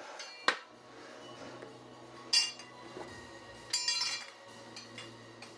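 Metal clinks and rings from plate-loaded dumbbells being gripped and shifted on the floor, iron plates knocking together. There is a sharp knock about half a second in, then a ringing clink a couple of seconds later and a cluster of clinks near the end.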